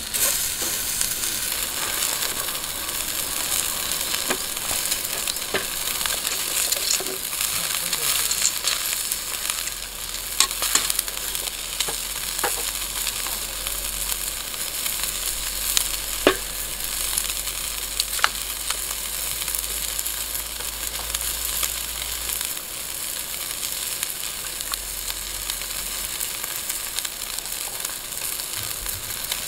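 Chicken-and-leek yakitori skewers sizzling over a charcoal grill: a steady hiss with scattered sharp pops.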